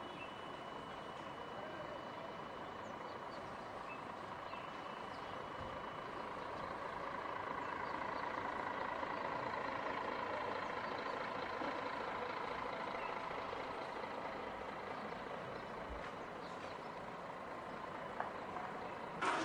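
Steady hum of distant traffic and engines across an outdoor city, with a faint steady tone through it, growing a little louder in the middle. A few short knocks near the end.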